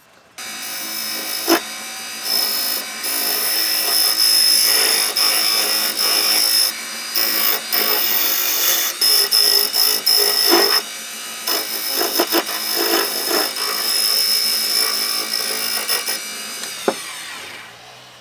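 Wood lathe running while a turning chisel cuts into a spinning hardwood blank: a steady high-pitched whine with hissing, scraping cuts in repeated passes and short breaks between them. Near the end the sound fades and its pitch drops as the lathe slows.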